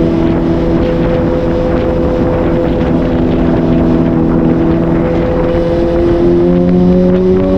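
Suzuki GSR750's inline-four engine running at steady cruising revs under way, with wind noise over the microphone; the revs climb slightly near the end.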